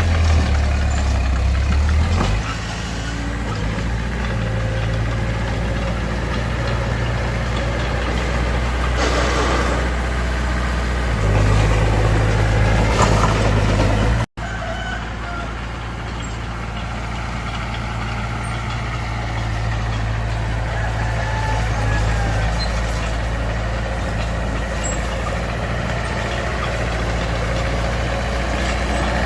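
Heavy diesel engines of a Mitsubishi BD2F bulldozer and a dump truck working, running steadily with the note swelling louder twice as the load changes. The sound cuts out for an instant about halfway through.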